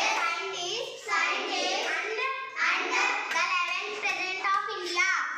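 A young girl's voice reciting sentences aloud, line by line.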